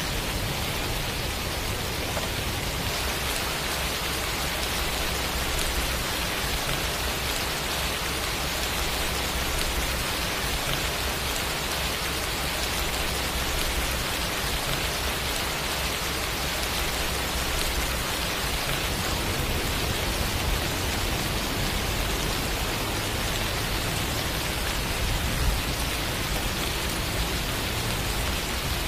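Steady rain falling, an even hiss without change, with a low rumble underneath and one slightly louder tap near the end.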